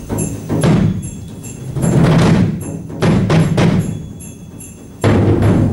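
Percussion ensemble playing: loud, heavy drum strokes come in surges about once a second, over a steady high ticking about two or three times a second.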